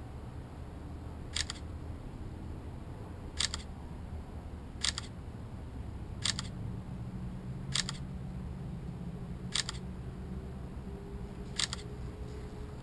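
Camera shutter clicking seven times at uneven intervals of about one and a half to two seconds, over a low steady background noise.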